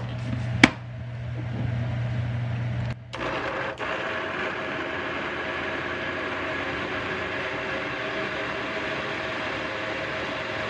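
Countertop blender running steadily as it grinds chickpeas and garlic into hummus. There is a sharp click just under a second in, and the sound drops out briefly about three seconds in before running on evenly.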